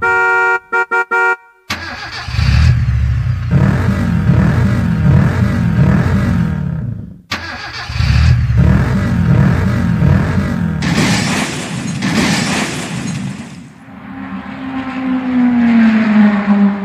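Sound-effect tones played on a Casio CT-X series keyboard. First comes a short stuttering run of beeps, then two long vehicle-like engine effects with wavering pitch, and near the end a held horn-like tone that slides slightly down.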